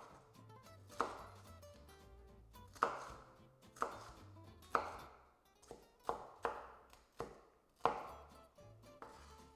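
Chef's knife dicing red bell pepper on a cutting board: about eight sharp, separate strokes at an uneven pace.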